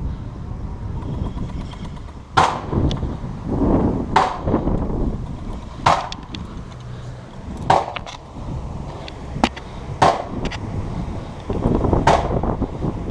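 Airsoft gun firing single shots: about six sharp cracks, roughly two seconds apart, with a few fainter clicks between them, over a rough background noise.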